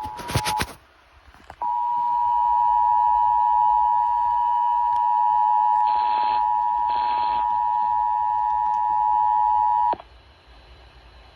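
Emergency Alert System broadcast tones. The buzzing digital header bursts end just under a second in. After a short gap comes the EAS two-tone attention signal, two steady tones sounded together, held for about eight seconds and cut off abruptly. This signal announces the alert message, here a required monthly test.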